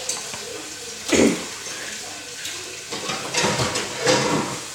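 Motor-driven Lego ceiling fan running at speed 3 in reverse, a steady whirring hiss of motor and moving air, with a slight warble. Louder voice-like swells come about a second in and again between about three and four and a half seconds in.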